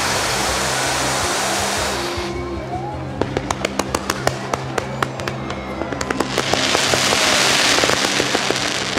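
Fireworks: ground fountains spraying with a dense hiss for about two seconds, then a quick run of many sharp cracks and pops as comets and small shells are fired up, with a second spell of hiss about seven seconds in. Music with steady low tones plays underneath.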